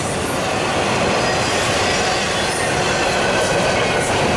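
Double-stack intermodal container train rolling past at close range: a steady, loud rumble and rattle of wheels and cars on the rails, with faint thin high squeals from the wheels.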